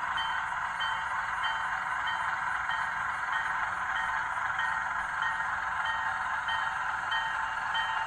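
HO-scale model diesel switcher locomotive running along the track, a steady whir with a faint regular pulse a little under twice a second.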